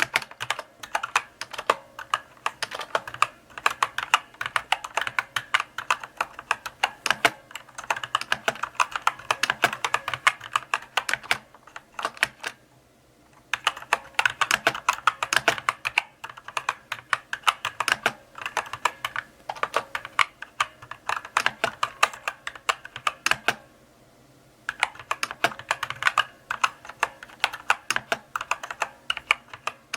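Slow typing on a mechanical keyboard: runs of key clicks, broken by two short pauses.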